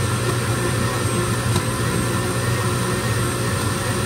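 Countertop glass-jar blender running steadily with a low hum, blending ice cream, milk and cream cheese into a milkshake.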